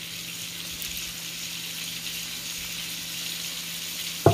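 Pancake batter sizzling in hot oil in a cast-iron skillet, a steady hiss, with a brief louder sound right at the end.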